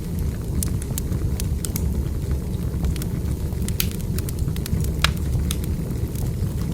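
Wood fire burning, with scattered sharp pops and snaps from the firewood over a steady low rumble.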